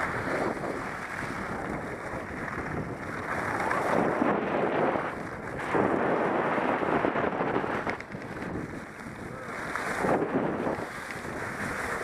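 Skis sliding and scraping over packed snow during a downhill run, with wind buffeting the microphone; the rushing noise swells and eases several times.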